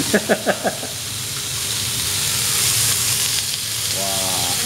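Chicken pieces frying in olive oil in a stainless steel frying pan: a steady sizzling hiss.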